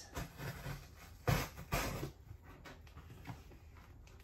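Cardboard shipping box being handled and picked at along an edge: rustling and scraping, with two louder short scuffs a little over a second in, then quieter small clicks.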